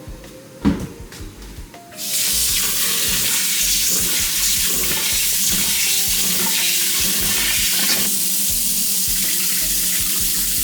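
Kitchen tap turned on, running water steadily into a pot to wash rice; it comes on suddenly about two seconds in, after a single knock of the pot.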